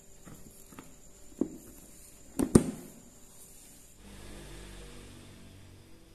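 A few light knocks, then two sharp knocks close together about two and a half seconds in, with a faint low hum from about four seconds.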